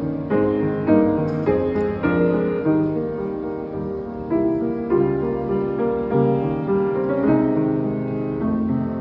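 Grand piano played with both hands: chords under a melody, each new note struck and left to ring into the next.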